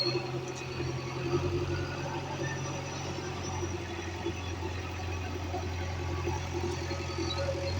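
Heavy diesel engine running steadily at low speed. Its pitch drops slightly about a second in.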